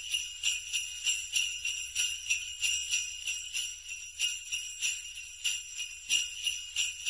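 Jingle bells shaken in a steady rhythm, about three shakes a second, with a bright high jingling.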